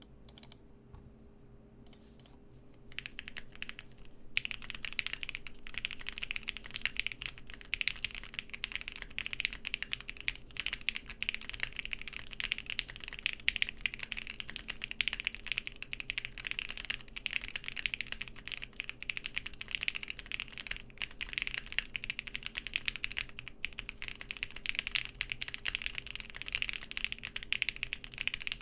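Typing on a Bakeneko60 mechanical keyboard with lubed and filmed Lavender switches and PBT keycaps: a few scattered keystrokes, then a dense, steady stream of fast typing from about four seconds in. A faint steady fan hum sits underneath.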